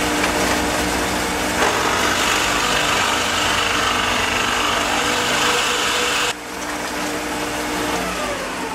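Shopsmith used as a drill press: its motor runs steadily while the bit bores into a wooden board from about two seconds in, and the cutting noise stops abruptly about six seconds in. Near the end the machine is switched off and its pitch falls as it spins down.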